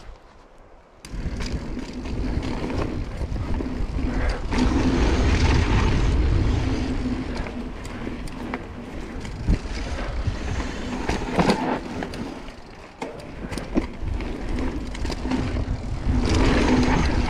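Mountain bike rolling fast down a dirt trail: tyre and trail noise with a low rumble and scattered sharp knocks and rattles as it runs over bumps. There is a steady hum throughout. The sound starts about a second in.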